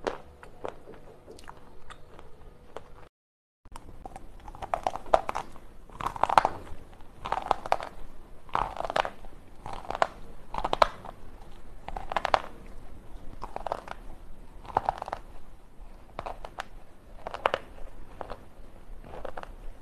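A slate pencil being bitten and chewed: sharp, brittle crunches about once a second. There are lighter clicks before a short silent gap about three seconds in.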